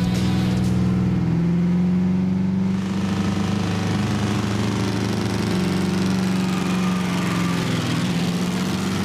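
Ford Thunderbird's engine running steadily as the car cruises down the road.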